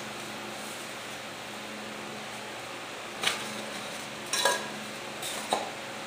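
Foam disc bulkheads handled and set down on a wooden table: a few light taps and scrapes about three, four and a half, and five and a half seconds in, over a steady low hum.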